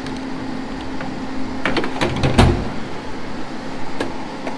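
Drawers of a steel tool chest being worked: a few metal clicks and rattles, then a drawer shut with a loud thud about halfway through, and a sharp click near the end as a lower drawer is pulled open on its slides. A steady low hum runs underneath.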